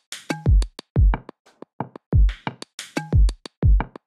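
Electronic background music with a drum-machine beat: deep kick drums that drop in pitch, with sharp high hits between them.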